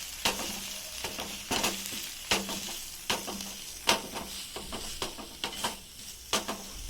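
Spoon scraping and knocking against a pan, about one stroke a second, as a sizzling onion-tomato masala with freshly added spice powders is stirred. A steady frying hiss runs underneath.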